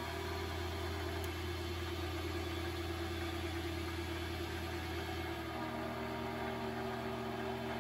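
Vevor MX400 mini lathe's spindle and drive motor running steadily at high speed, about 1250 RPM, with a steady hum and whine. The speed holds on a newly replaced speed-control potentiometer, and the mix of tones shifts about five and a half seconds in.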